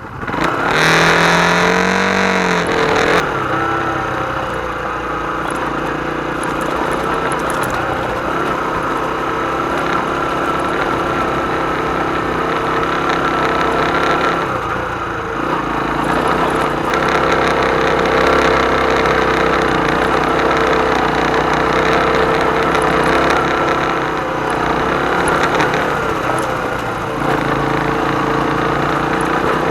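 Hyosung Karion 125's single-cylinder four-stroke engine pulling away with rising revs in the first few seconds, then running steadily under way, the pitch dropping and picking up again around the middle and once more near the end.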